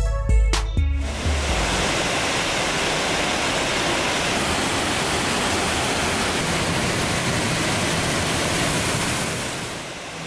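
A music track cuts off about a second in. Steady rushing water follows, an even hiss with no rise and fall, and it fades out near the end.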